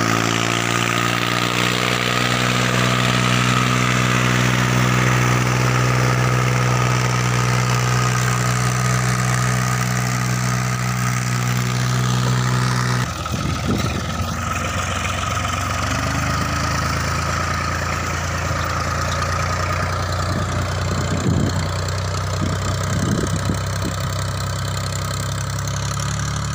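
New Holland Ghazi tractor's diesel engine running steadily while it drags a rear leveling blade through loose, tilled soil. About halfway through the sound cuts abruptly to a quieter, lower drone, with a few brief clatters later on.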